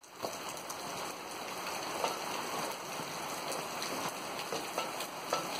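Steady rain falling on a wet concrete roof, with scattered sharp ticks.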